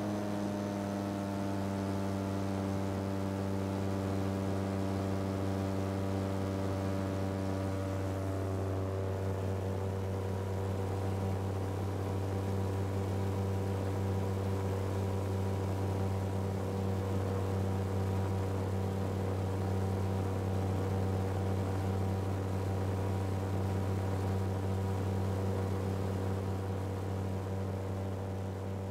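Engine and propeller of a Titan Tornado II light experimental aircraft running steadily in cruise flight, heard from inside the cockpit: a low, even drone with a stack of overtones, its upper tones shifting slightly over the first several seconds.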